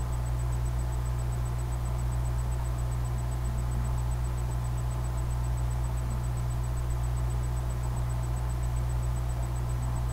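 Steady low hum with a hiss and a faint thin high tone, unchanging throughout; no other sound.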